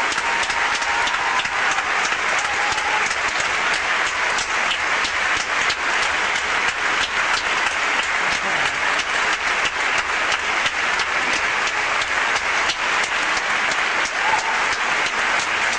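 A theatre audience applauding steadily: dense, sustained hand-clapping from a large crowd.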